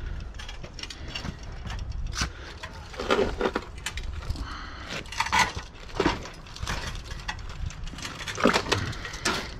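Irregular knocks, clinks and rattles of metal being handled, over a low steady rumble.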